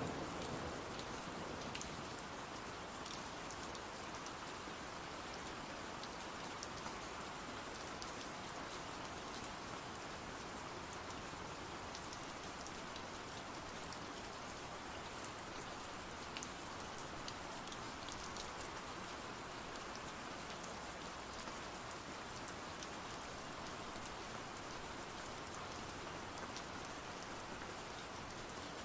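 Steady rain, with scattered light ticks of drops. A low rumble of thunder dies away in the first second.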